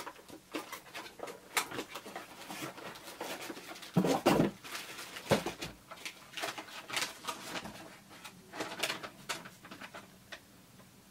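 Cardboard and paper packaging being handled: small boxes opened and their contents pulled out, with irregular rustles and scrapes and one louder knock about four seconds in.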